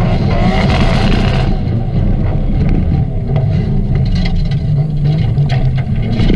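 Nissan Silvia's RB inline-six engine running hard under load while the rear tyres spin, first on tarmac in smoke, then on gravel. A loud hiss of wheelspin drops away about a second and a half in, leaving mainly the engine's steady low note.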